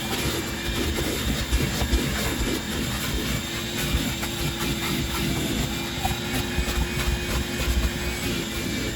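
A motor running steadily with a constant hum over a loud, even hiss, with a few low knocks.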